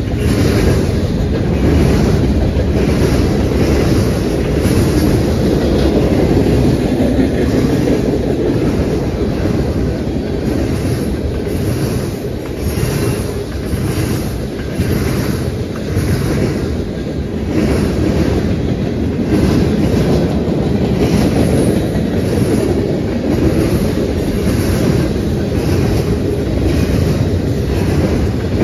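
Freight cars of a long train rolling past: a steady, loud rumble of steel wheels on rail with a repeated clickety-clack as the wheel sets cross rail joints.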